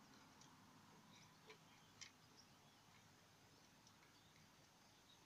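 Near silence, with a couple of faint clicks about one and a half and two seconds in.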